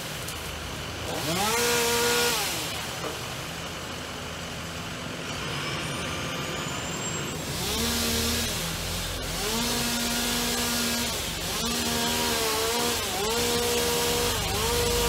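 Two-stroke chainsaw cutting tree limbs overhead, its engine revving up to full throttle, holding, then dropping back to idle. It revs once a couple of seconds in, then several times in quick succession through the second half.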